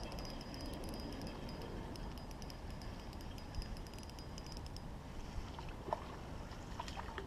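Fishing reel being cranked, a fast high ticking whir, as a hooked crappie is reeled in. The whir stops about five seconds in, and a few small splashes follow as the fish reaches the surface.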